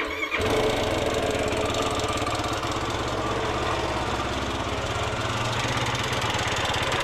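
Yamaha YFZ450R sport quad's single-cylinder four-stroke engine running steadily, with no revving.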